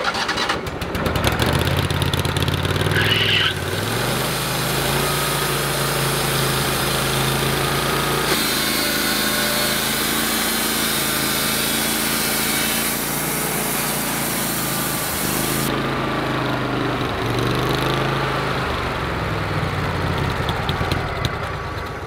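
Portable bandsaw mill's gas engine starting and revving up to cutting speed after about three and a half seconds. The blade then saws through the log, adding a hiss from about eight to sixteen seconds in while sawdust sprays from the chute, and the engine runs on, easing off near the end.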